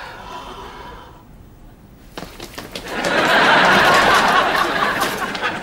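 Studio audience laughing, swelling into a loud wave of laughter about three seconds in.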